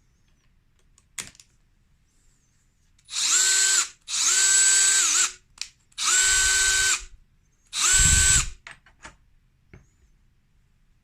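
HiKOKI DB12DD 10.8 V cordless driver drill run in four short bursts, its motor whine spinning up, holding steady and winding down each time, with a low rumble under the last two. A sharp click comes about a second in, and a few light clicks follow the last burst.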